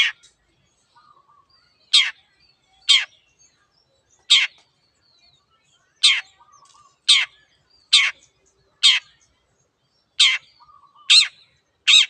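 Long-tailed shrike (cendet) calling: a string of short, loud, harsh calls about once a second, with faint soft twittering between them. This is a bird singing in full, vigorous voice ('gacor').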